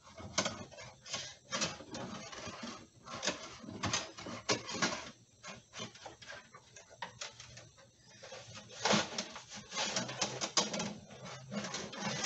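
Steel fish tape being fed out of its plastic reel and pushed in behind a dashboard: irregular clicking, rattling and scraping, busier about three-quarters of the way through.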